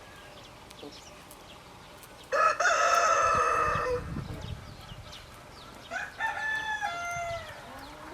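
A rooster crows loudly, then a second, quieter crow follows about two seconds later.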